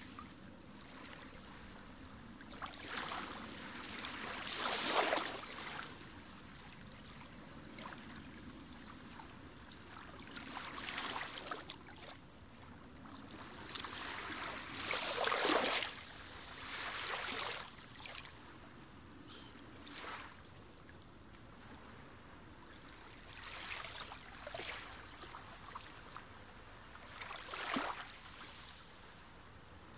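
Muffled underwater sound from a camera in its housing: a steady hiss of water, with whooshing swells every few seconds.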